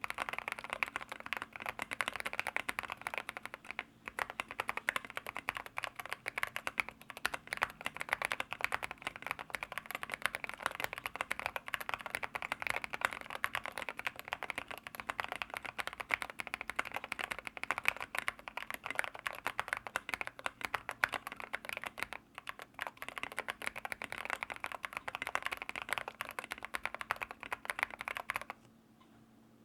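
Fast, continuous typing on a mechanical keyboard with linear switches: a dense run of keystrokes that stops abruptly about a second before the end.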